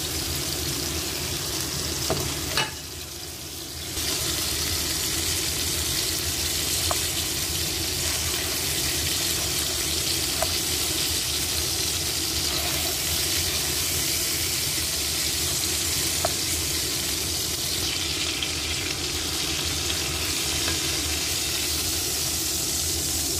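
Pork chop sizzling in hot oil in a nonstick frying pan: a steady frying hiss with a few sharp ticks scattered through it. The sizzle drops for about a second around three seconds in.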